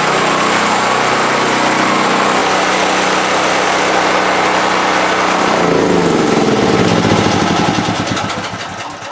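Raven MPV 7100's small engine running steadily after a cold start, then, about six seconds in, slowing with a falling pitch and dying away to a stop.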